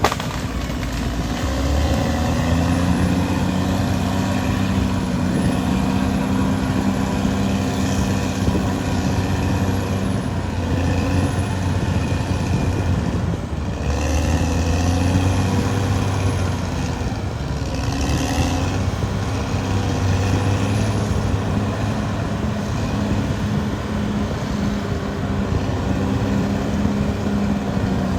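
Caterpillar D6R XL bulldozer's diesel engine working steadily, its pitch shifting up and down as the load changes.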